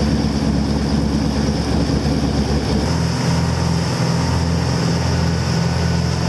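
Boat engine running steadily with a loud low hum; about three seconds in its note shifts as the engine settles at a different speed.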